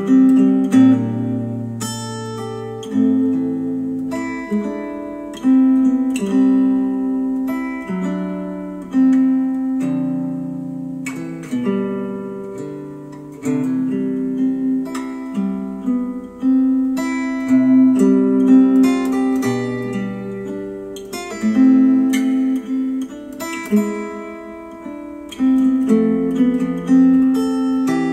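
Acoustic guitar music, plucked notes and strummed chords ringing and fading, with no singing, played back through Micca RB42 bookshelf speakers driven by a Yamaha A-S301 integrated amplifier.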